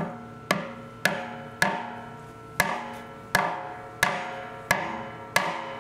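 Small metal-headed hammer tapping a wooden peg into the chime of an oak barrel to plug a leak: nine sharp taps about half a second apart, with a slightly longer pause near the middle, each ringing briefly before the next.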